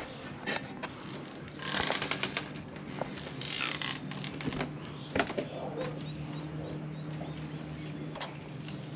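A steady low hum with a few light knocks and two brief spells of rustling, about two and three and a half seconds in.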